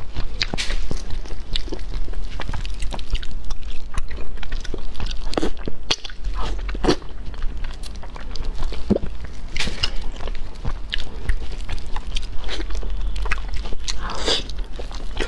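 Close-miked eating: a person biting into and chewing pieces of braised fish, with many short irregular clicks from the mouth and food.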